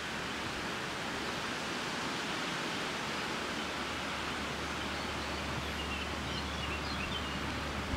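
Steady outdoor wind and rustling noise. A low steady hum sets in about halfway through, and a few faint high bird chirps come in the second half.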